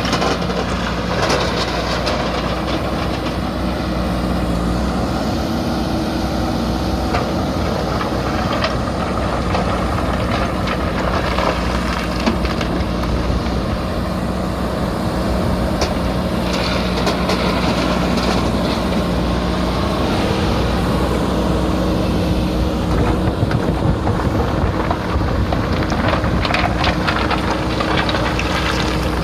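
JCB backhoe loader's diesel engine running steadily while it works, with scattered knocks and clatter, the sound of stone and gravel being loaded into a tractor's trailer.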